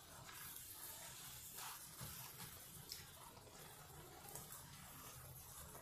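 Faint sizzle of goat offal pieces (liver, kidney, heart and brain) cooking in garlic water in a frying pan, with a few soft strokes of a silicone spatula stirring.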